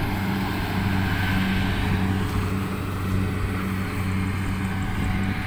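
Rice combine harvester's engine running steadily with a constant low drone, with wind rumbling on the microphone.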